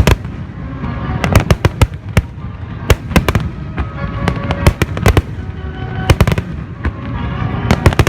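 Fireworks exploding in a display: sharp bangs and crackles in quick clusters every second or so, over music playing.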